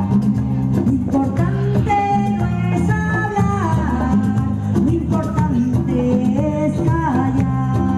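Live ethnic folk music: a band plays over a steady percussive beat while a voice sings a gliding melody on top.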